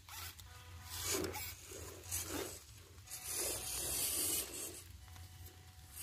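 Dry leaf litter crunching and rustling in rough bursts about once a second, with a longer stretch of rustling about three to four seconds in, and a faint whine from a small RC truck's electric motor.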